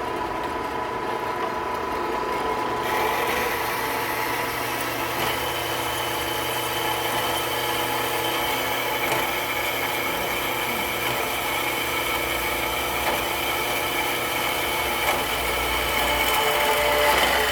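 Small BOYE GFW5012 bandsaw running, its motor giving a steady hum and whine; a harsher hiss joins about three seconds in and a higher whine about two seconds later.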